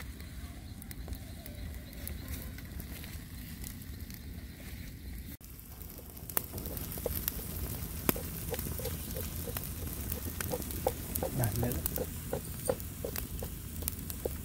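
Wood fire crackling and popping under crabs grilling on a wire rack, with faint sizzling. After a cut about five seconds in, the sharp pops come thicker, along with a run of short pitched notes a few times a second.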